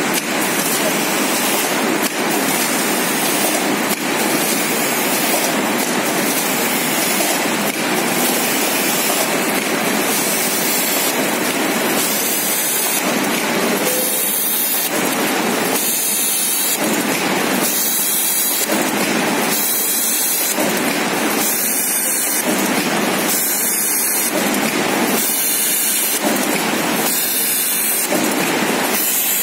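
Automatic PP woven bag cutting and sewing machine running: a steady, loud mechanical noise with a cycle that repeats about every two seconds.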